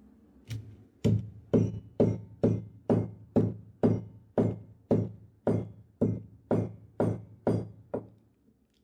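A metal kitchen vessel being struck or knocked over and over, about two sharp knocks a second, each ringing briefly. The knocks stop near the end.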